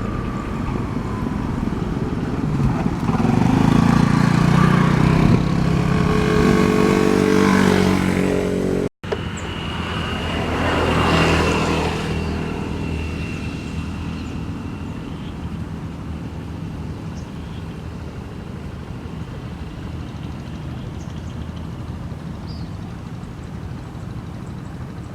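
A motor vehicle's engine passes close by, growing louder and then cutting off abruptly just before nine seconds in. Another pass follows soon after, then the sound settles to fainter steady road noise.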